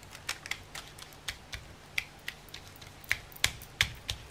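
Light, irregular tapping clicks, about three or four a second, from green paint being dabbed through a stencil onto a paper journal page; the sharpest taps come a little after three seconds in.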